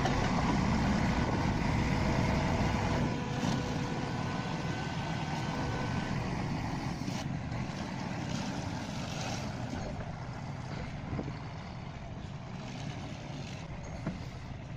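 A heavy truck's engine running steadily, a dense rumble that is loudest for the first few seconds and then eases off.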